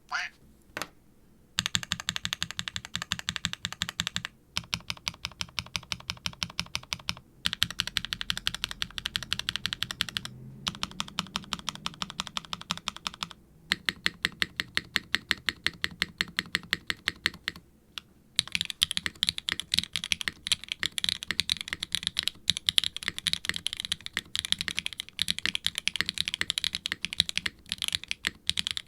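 Fast typing on a 60% mechanical keyboard: a HIBI June silicone case with an FR4 plate, Swagkeys Ghost Dragon linear switches (POK top housing, nylon bottom, POM stem) and GMK double-shot ABS keycaps. The keystrokes are bright and clacky and come in quick runs with short pauses between them; the later runs are sharper in the treble.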